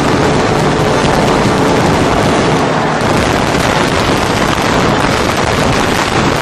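Fireworks display at its height: dense, overlapping bangs and crackling merge into one continuous loud noise.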